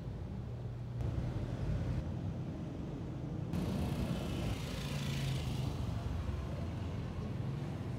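Street traffic: a steady low rumble of road vehicles, with a vehicle passing close by about five seconds in, its hiss swelling and fading.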